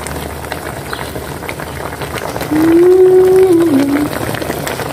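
Pork steak with onions simmering in its sauce in a pan, a steady bubbling hiss. About halfway through, a voice hums one held note that steps down at the end.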